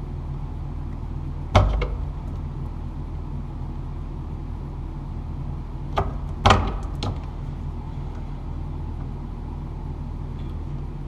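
Wire cutters snipping the black electrical wires at a switch box: one sharp click about one and a half seconds in, then three more close together around six to seven seconds in. A steady low hum runs underneath.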